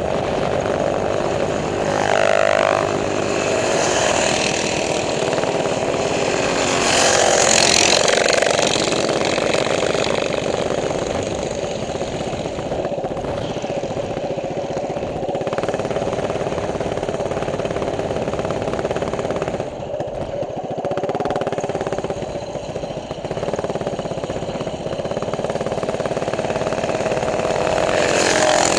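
Small single-cylinder four-stroke minibike engine running under way, its pitch rising and falling a few times as the throttle changes.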